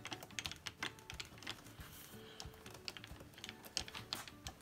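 Irregular light clicks and rattles, several a second, from a Harbor Freight mini mill's table being cranked by hand: the handwheel and leadscrew moving the table under a dial test indicator.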